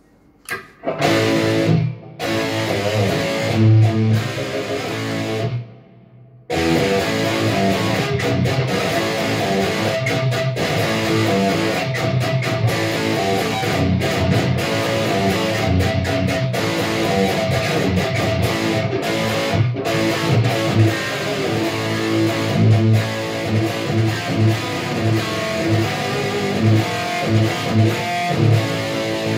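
Gibson Les Paul Custom electric guitar being played: picked single-note lines and riffs, with a short break about six seconds in, then continuous playing.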